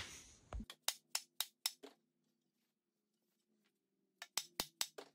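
Dead-blow mallet striking the end of a hickory axe handle while test-fitting a double-bit axe head, driving the head down onto the handle's shoulder. About six quick blows come early, then a pause, then five more near the end.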